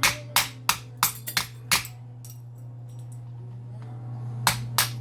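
Sharp metal-on-metal knocks and clinks from an old furnace blower motor being taken apart, about seven irregular strikes in the first two seconds and two more near the end. A steady low hum runs underneath.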